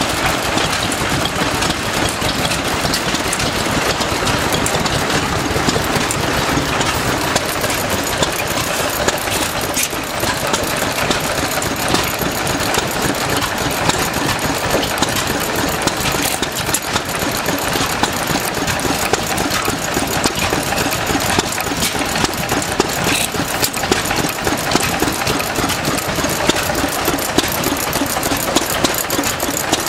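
Vintage stationary engines running together, making a steady, rapid clatter of knocks that keeps going without a break.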